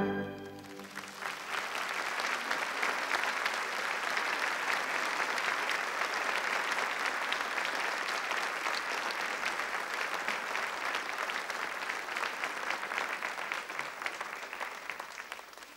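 An orchestra's final chord cuts off just at the start, and about a second later a large audience breaks into steady applause that fades near the end.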